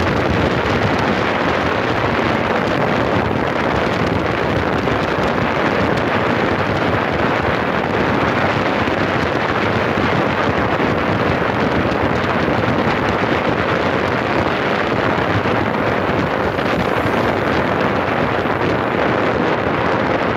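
Steady wind rushing over the microphone of a moving vehicle, mixed with the hum of travelling along the road.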